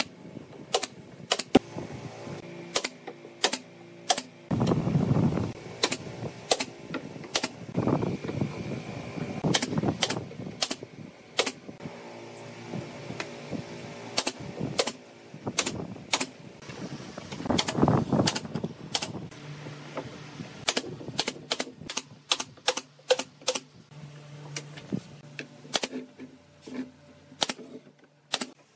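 Nail gun firing brads into pine pallet-wood boards: single sharp shots at irregular intervals, coming faster in the second half with several in quick succession. Between the shots are a few stretches of duller rubbing and knocking, and a low hum in the background in the second half.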